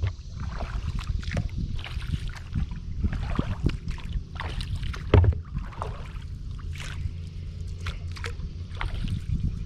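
Kayak paddling on calm water: paddle blades dipping, dripping and splashing, with water lapping along the hull of a Wilderness Systems Tsunami 120 sea kayak. A low thump comes just as it begins and another about five seconds in.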